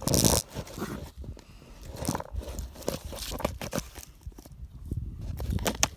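Scattered knocks, scrapes and crunching steps in a pile of cinder blocks, starting with a loud scrape and ending in a quick run of sharp clicks.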